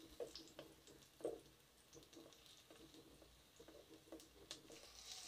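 Faint stirring of chopped onions frying in oil in a kadhai: scattered soft taps and scrapes of a wooden spatula against the pan over a light sizzle that grows a little near the end.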